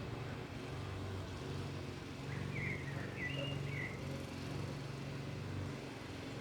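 Steady low hum of a running engine, with a small bird chirping a few times about two to four seconds in.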